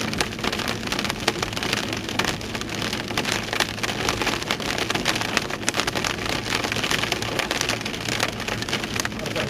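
Heavy rain mixed with hail, almond-sized hailstones striking a hard surface in a dense, continuous patter of sharp clicks.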